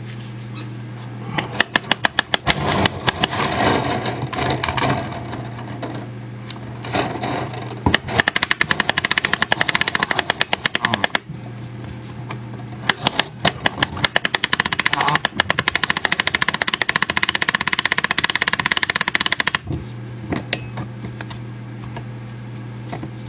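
Clock mainspring winder's ratchet clicking rapidly as its crank is turned, in spurts of a few seconds, the longest near the end, while a mantel clock mainspring is wound tight on the arbor. A steady low hum runs underneath.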